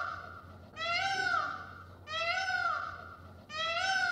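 Indian peafowl (peacock) calling, three calls in a row about a second and a half apart, each rising and then falling in pitch.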